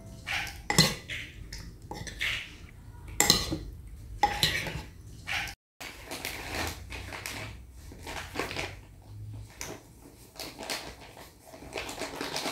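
A metal spoon stirring and scraping through raw chicken pieces in a ceramic bowl, with sharp clinks against the bowl. About halfway in it stops, and a plastic packet rustles as flour is shaken out onto a plate.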